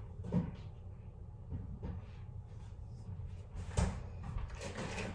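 A refrigerator door being opened and shut as milk is fetched. There is a soft thump about half a second in and a louder knock near the end, followed by some rustling.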